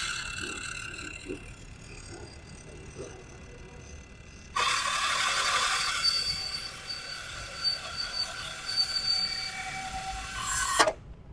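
Dekton M21-CN210Plus brushless cordless miter saw with a carbide-tipped steel-cutting blade: the blade spins with a whine, then about four and a half seconds in it bites into 3 mm steel plate, a loud harsh grinding with high squeals. Near the end the sound cuts off suddenly as the blade jams and the saw's safety cutoff stops the motor.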